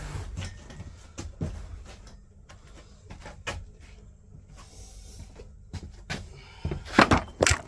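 Scattered knocks and clunks, with a cluster of louder knocks about seven seconds in.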